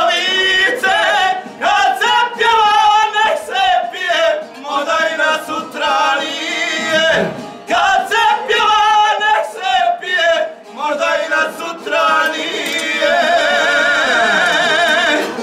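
Men singing a traditional folk song together, the voices sliding between notes in long sung phrases; near the end one long note is held with a strong, fast-shaking vibrato.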